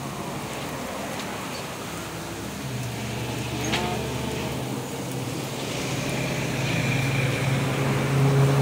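Motor vehicle engine running on the street, a steady low hum that grows louder toward the end, with a brief rising whine about three and a half seconds in.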